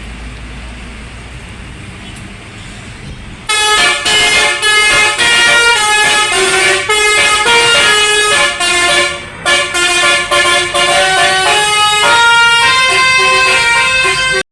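A bus's basuri telolet horn, a multi-tone musical horn, plays a loud melody of held notes starting about three and a half seconds in, after a steady low rumble of road traffic.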